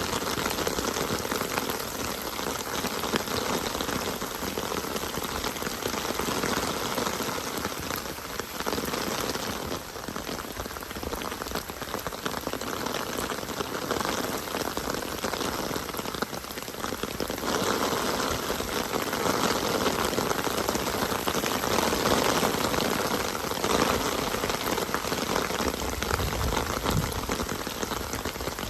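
Steady rain falling, an even hiss of drops that eases a little in the middle and swells again later. A brief low rumble comes near the end.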